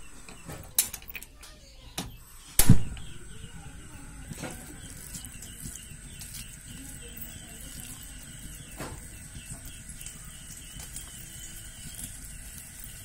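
Gas stove's auto-ignition knob turned, making several sharp clicks, the loudest about two and a half seconds in, followed by a steady hiss from the lit burner.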